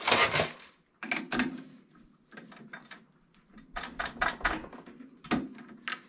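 Metal clicks and knocks of a chuck key loosening a lathe chuck and the small steel latch part being taken out by hand: a string of separate clinks, with a quick run of them about four seconds in.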